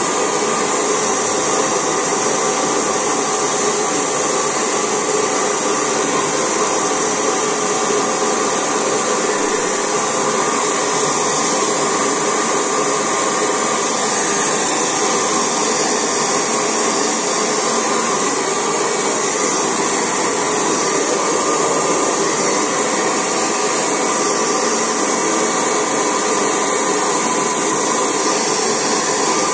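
Handheld hair dryer running steadily on its lowest power setting with hot air, a constant, even blowing noise.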